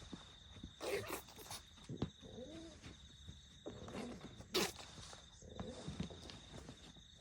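A sleeping dog breathing noisily: two sharp, noisy breaths, about a second in and near the middle, with a soft groan that rises and falls between them and quieter puffs of breath around them. A faint steady high-pitched tone sits underneath.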